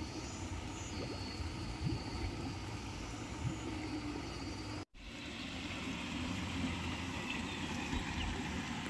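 Steady outdoor ambience with a low rumble, broken by a brief complete dropout about five seconds in.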